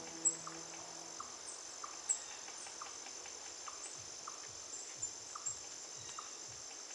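Crickets chirring steadily, with short high chirps repeating about every half second. Background music fades out about a second in.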